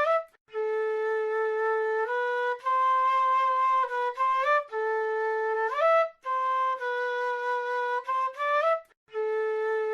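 South American flute playing a slow melody of held notes, some reached by upward slides. It breaks off briefly shortly after the start and again about nine seconds in.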